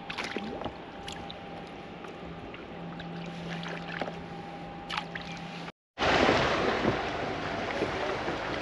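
Light clicks and taps of fishing tackle being handled over a faint steady hum. About six seconds in, after a sudden break, a louder steady rush of wind and water around the kayak takes over.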